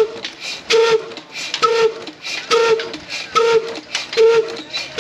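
Old black single-cylinder horizontal diesel engine with a heavy flywheel running slowly and evenly: one exhaust beat about every 0.9 seconds, each a short pop carrying a hollow, pitched note.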